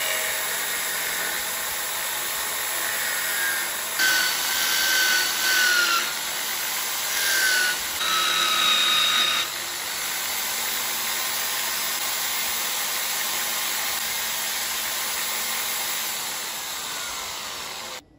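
Corded electric drill clamped in a wooden jig as a makeshift lathe, running steadily while a wooden wheel spins in its chuck. Twice, a few seconds in, a tool pressed against the spinning wood adds louder scraping with squealing tones. The sound cuts off near the end.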